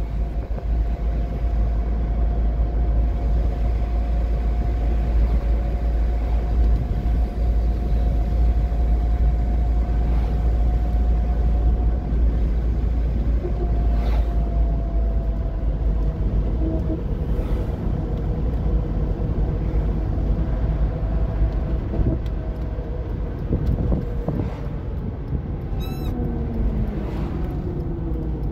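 Alfa Romeo 75 driving, heard from inside the cabin: a steady engine and road rumble. Near the end the engine note slides lower as the car slows.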